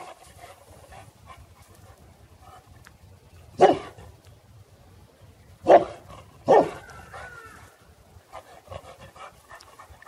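A Boerboel (African mastiff) barks three times, with the last two barks close together. It is barking at an unfamiliar object.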